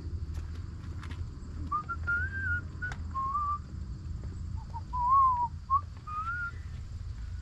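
A person whistling a short, wandering tune in several phrases, starting about two seconds in, over a steady low hum and a few light clicks.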